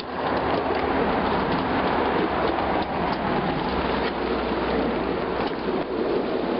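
5-inch gauge ride-on miniature train running along the track: a steady rumble and rattle of wheels on the rails, with many small clicks.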